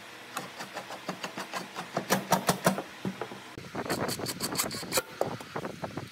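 Hitachi cordless impact driver driving screws into pine boards: rapid clacking hammering in several short bursts, loudest near the middle.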